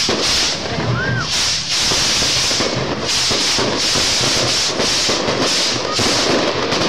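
A rack of firework fountains spraying sparks, a loud steady hiss with dense crackling that swells and eases in waves.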